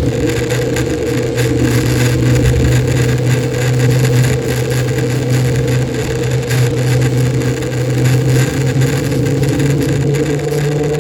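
An engine running steadily with a constant low hum, its pitch stepping up a little near the end.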